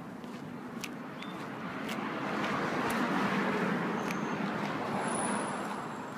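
Cars driving past, their tyre and engine noise swelling to a peak about three seconds in and fading again near the end.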